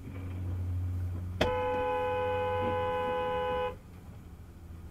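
Car horn sounding one steady blast of a little over two seconds, starting about a second and a half in and cutting off sharply, with two close tones held together.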